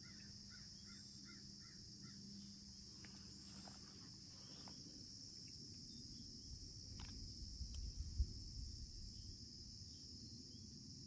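Steady, high-pitched chorus of crickets, with a quick run of about six bird chirps near the start. A brief low rumble swells in the middle.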